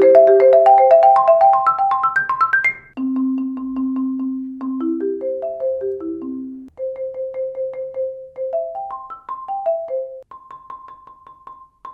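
Marimba played with Marimba One Wave Wrap yarn mallets: quick, evenly repeated strokes climbing in rising figures, with notes repeated on one pitch. The playing breaks off briefly about three seconds in and again past halfway, and it is softer near the end.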